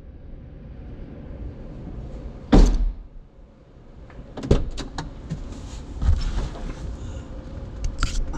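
A Porsche 911T's door shutting with one solid thud about two and a half seconds in, heard from inside the cabin, followed by a few scattered clicks and knocks as someone settles in.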